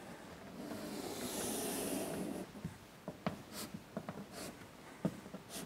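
Chalk drawing a long line on a blackboard: a scraping stroke of about two seconds, then short chalk taps and ticks against the board.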